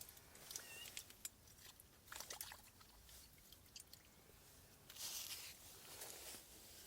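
Faint handling noises: scattered light clicks and rustles, with a louder swish about five seconds in.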